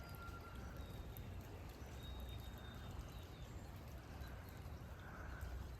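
Faint, steady rush of water from a creek in flood, running high over its banks after heavy rain.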